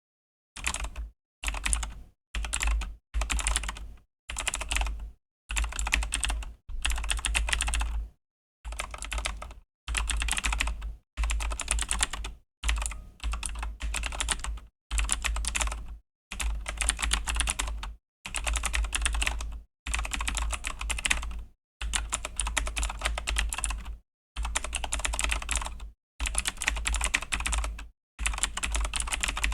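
Typing on a Razer BlackWidow V3 mechanical keyboard with Razer Green clicky switches: rapid key clicks in bursts of a second or two, broken by short silent pauses.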